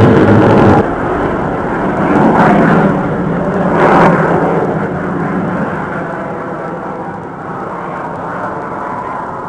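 Blue Angels F/A-18 jets passing overhead: loud jet-engine noise that drops suddenly about a second in, swells twice more, then slowly fades as the jets move off.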